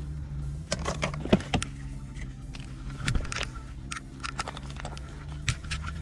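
Irregular sharp metallic clicks and clinks from fishing pliers working the hook out of an eel on a metal pier deck, over a steady low hum.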